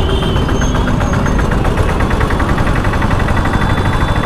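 Motorcycle engine running at a steady, even beat under a heavy low rumble of road noise while riding.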